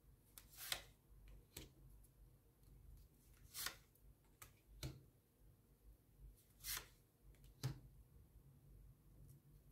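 Faint, quiet handling of tarot cards: six or seven short, soft rustles and clicks as the cards are touched and moved, in near silence.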